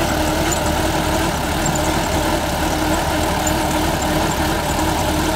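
Sonalika 750 tractor's diesel engine running steadily at low throttle while pulling a pipeline-trenching machine through the soil, under little strain.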